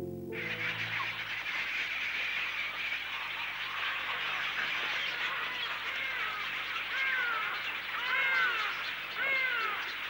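A huge flock of birds calling all at once, a dense continuous chatter of many voices, with single arched calls standing out above the mass in the last few seconds.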